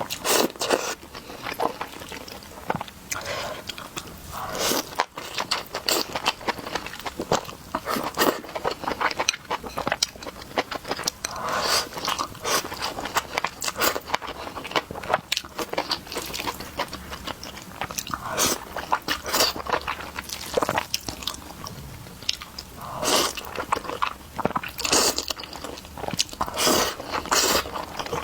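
Close-miked sounds of a person eating: a steady run of irregular bites and chewing, with frequent sharp clicks and short wet mouth noises.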